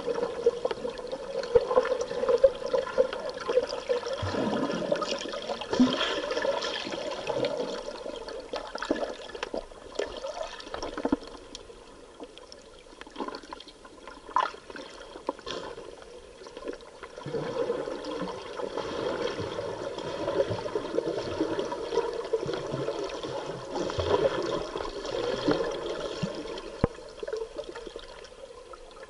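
Scuba exhaust bubbles and water noise heard underwater, a gurgling, rushing wash that swells and eases, dropping away for a few seconds about halfway through and again near the end.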